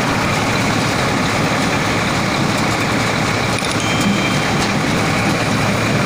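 Tractor-powered multi-crop thresher running steadily, a constant loud mechanical din of engine and threshing drum while it works.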